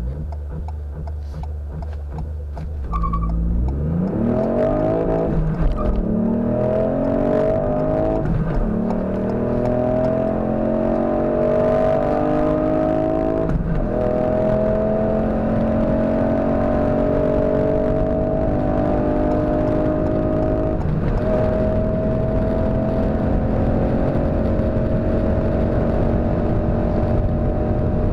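Ford Fiesta ST Mk8's 1.5-litre turbocharged three-cylinder engine held at steady revs on launch control for about three seconds, then launched at full throttle. It pulls up through the gears, its pitch climbing in each gear and dropping sharply at four upshifts.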